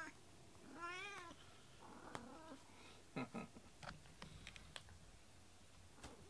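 A house cat meowing: one short call that rises and falls about a second in. Faint clicks and taps follow around the middle.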